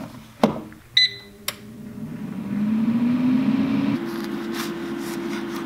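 Air fryer being closed and started: the basket clicks into place, a short beep sounds about a second in, then the fan motor spins up with a rising hum and settles into a steady whirring run.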